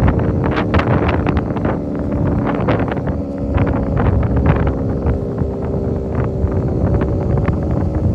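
Federal Signal 3T22A three-tone rotating tornado siren sounding its attack signal, several tones at once held fairly steady, with a slight dip about two and a half seconds in. Heavy wind buffets the microphone over it.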